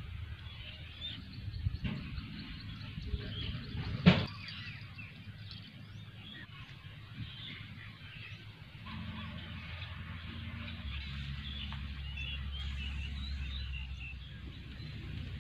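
Outdoor ambience with birds chirping on and off. A sharp knock comes about four seconds in, with a few softer knocks just before it.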